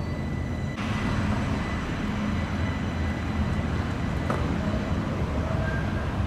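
Stadler Citylink tram-train running along street track toward the microphone, a steady low rumble. The sound changes abruptly about a second in, and faint high whining tones fade out soon after.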